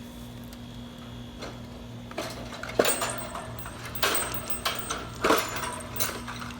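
Several sharp clicks and rattles as a bird's cage or enclosure is handled and opened, over a steady low hum.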